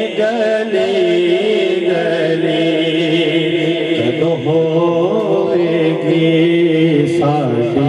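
A man singing a naat, a devotional song in praise of the Prophet, in a melodic, ornamented line over a steady drone underneath.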